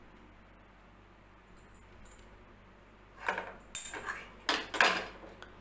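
Steel spoon scraping and clinking against a stainless steel bowl as chopped onion, tomato and capsicum are stirred together with seasoning. After a quiet start it comes in about three seconds in as a quick run of several strokes.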